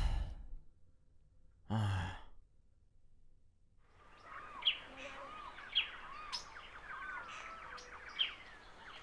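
A cartoon character's voiced sigh at the start, with another short vocal sound about two seconds in. From about four seconds in comes an outdoor ambience of small birds chirping and twittering over a faint hiss.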